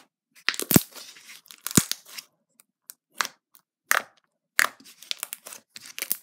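Thick, glossy slime being pressed and poked by hand, giving irregular sharp pops and crackles; the two loudest pops fall about a second apart near the start.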